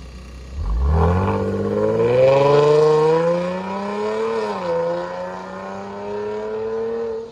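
Range Rover Velar accelerating away with its CGW valved mid and rear exhaust open. The exhaust note climbs in pitch, dips at a gear change about four and a half seconds in, then climbs again.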